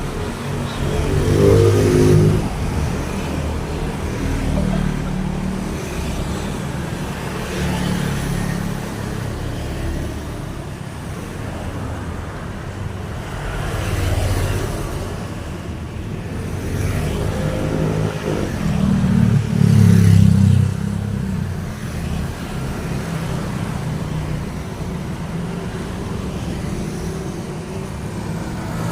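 Road traffic: vehicles passing in a steady stream with a continuous engine hum, and two louder passing vehicles, one about two seconds in and one about two-thirds of the way through.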